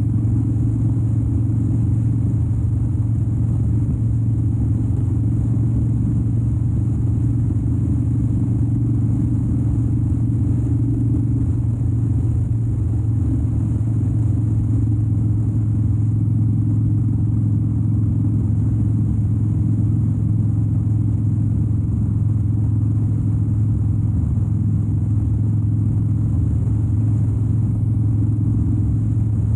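2013 Harley-Davidson Dyna Wide Glide's 103-cubic-inch V-twin engine running steadily under way, a constant low drone with no revving or gear changes.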